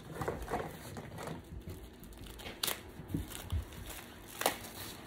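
Packaging crinkling and tearing as it is pulled off a rolled yoga mat, with sharper crackles about two and a half and four and a half seconds in.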